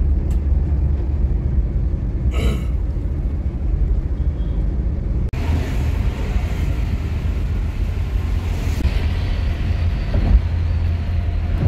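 Cabin noise of a Suzuki car driving on the highway: a steady low engine and road rumble. A short burst of sound comes about two seconds in, and a brighter rushing hiss of the road joins from about five to nine seconds in.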